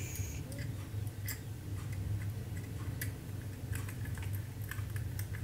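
Small screwdriver driving screws into a plastic three-pin electrical plug: scattered light clicks and ticks at irregular intervals.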